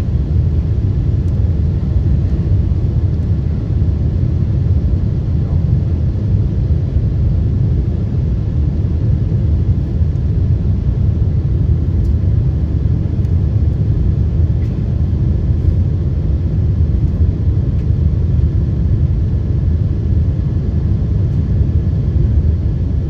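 Steady low cabin rumble of a Boeing 747-8 on its landing approach: engine and airflow noise heard from inside the passenger cabin.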